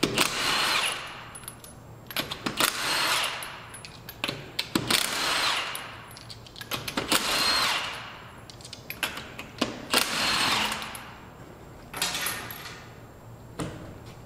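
Cordless impact wrench hammering the lug nuts off a car wheel: about six bursts of rattling impacts with a motor whine, each a second or so long, with short clicks between them.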